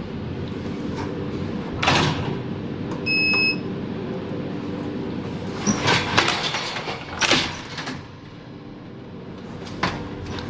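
ThyssenKrupp goods lift running with a steady machine hum. A short electronic beep comes about three seconds in, and a clunk near two seconds and several metallic clunks and rattles between about six and seven and a half seconds mark its doors moving. The hum drops away about eight seconds in.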